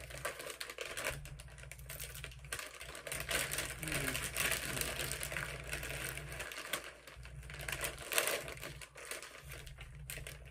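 Doritos tortilla chips being crunched with a full mouth, mixed with the crinkling of the chip bag as a hand rummages in it for more.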